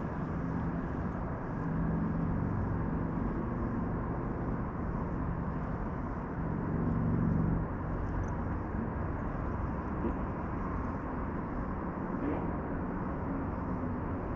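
Steady engine drone with a low hum that swells twice, about two seconds in and again around seven seconds.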